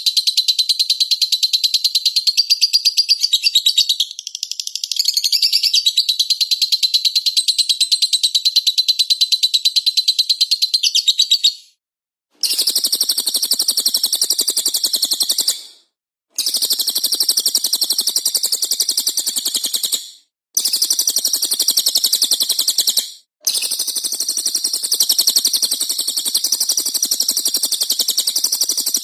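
Recorded songbirds chirping in a fast, dense, high chatter, the kind of looped birdsong used as 'masteran' to teach cage birds. After a short break about twelve seconds in, the chirping goes on in separate spliced sections over a softer, lower hiss, with short silences between them.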